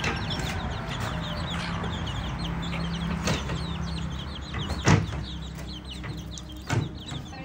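Fowl clucking and chirping, with a low hum underneath and two sharp knocks, about five and seven seconds in.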